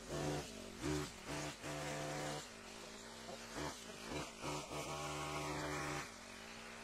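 Gas weed eater's small engine driving a hedge trimmer attachment, speeding up and dropping back several times as it cuts into cattails and reed stalks.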